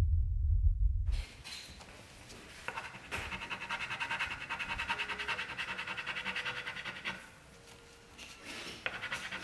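A low rumble cuts off about a second in. Then comes fast, even back-and-forth rubbing of hands, coin and tissue over paper on a tabletop. It pauses for about a second and a half near the end, then starts again.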